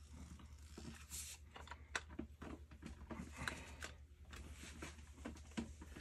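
Faint, scattered clicks and ticks of a small wrench working a threaded fitting as a new gas valve is tightened onto its pipe, over a low steady hum.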